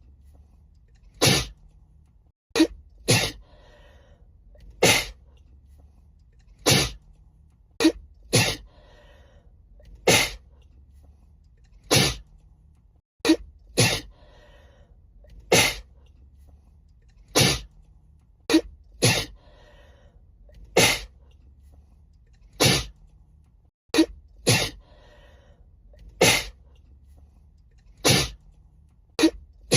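A woman sneezing over and over in a sneezing fit, sharp sneezes one every second or two, about twenty in all. It is one short recording looped, with a brief cut to silence about every ten seconds where the loop restarts.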